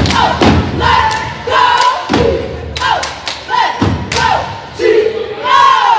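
Cheerleaders chanting a cheer together, shouted in unison, over a beat of loud stomps and hand claps.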